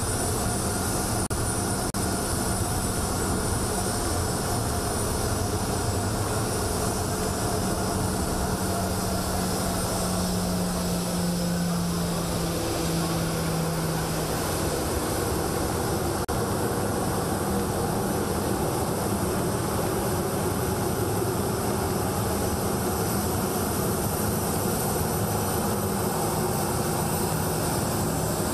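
Twin-engine Boeing 737 jet taxiing, its engines running at taxi power: a steady jet whine over a rumble. A low hum grows stronger towards the middle and then drops a little in pitch.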